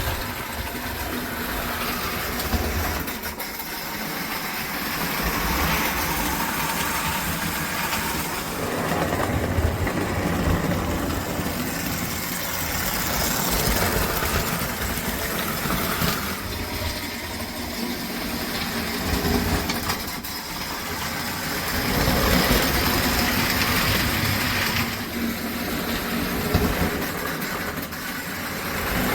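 American Flyer 322 toy steam locomotive running on its track with a short train, a steady rumbling clatter of motor and wheels on rails that swells and fades repeatedly as it comes near and goes away around the layout.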